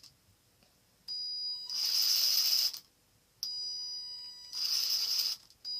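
Axial SCX10 crawler's electric motor and metal transmission gears whining as the drivetrain is run in two bursts of about one and a half to two seconds each, the second getting louder partway through.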